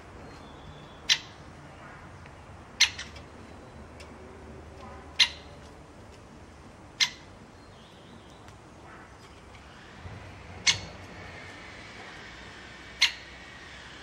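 Great spotted woodpecker giving single sharp 'kik' calls, six in all, spaced about one and a half to two and a half seconds apart.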